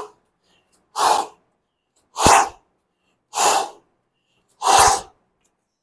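A man breathing out sharply through the mouth, four short forceful exhalations about a second and a quarter apart, one with each alternate shoulder touch in a kneeling plank.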